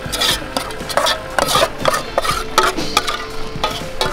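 Metal spoon stirring and scraping around an aluminium pot of wet salad, an irregular run of clinks and scrapes. Near the end the pot is tipped and scraped out.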